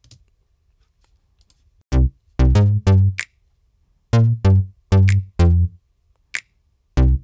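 Playback of a minimal pop beat led by Logic's stock Agile Synth Bass: short, deep synth bass notes in groups of four, starting about two seconds in. A sharp snap sample cuts through twice.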